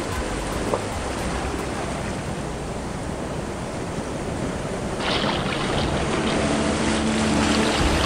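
Sea surf washing on a beach, heard as a steady rushing noise. Background music with steady tones grows in during the second half.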